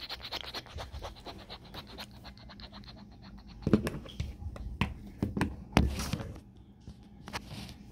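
Plastic action figures being handled and knocked together in play. There is a fast run of scratchy ticking for about three seconds, then several separate knocks and bumps.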